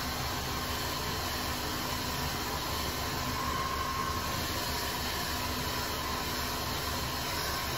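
Handheld hair dryer blowing steadily while drying short, damp hair, an even rush of air with a faint steady whine from its motor.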